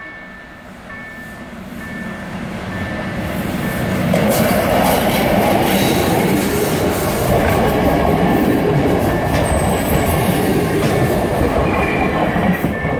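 An SU42 diesel locomotive and its double-deck passenger coaches approach and roll past close by. The noise builds over the first four seconds into a steady, loud rumble of engine and wheels on the rails. A level crossing warning bell rings faintly in short repeated tones at the start and again near the end.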